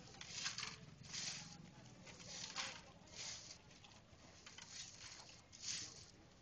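Footsteps of a walking crowd, shoes scuffing on a paved street at an unhurried walking pace.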